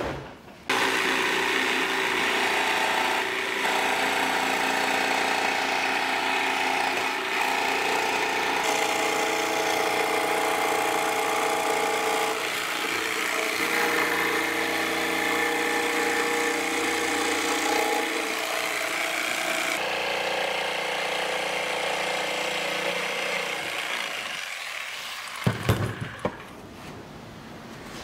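Festool electric jigsaw cutting through a plywood board, running steadily with its pitch stepping several times along the cut. It fades out near the end, followed by a few short knocks.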